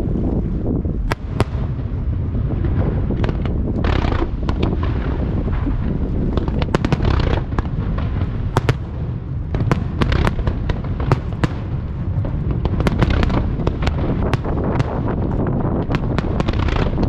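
Starmine fireworks barrage: shell bursts and sharp reports following one another irregularly, thickening to several a second from about a third of the way in, over a steady low rumble.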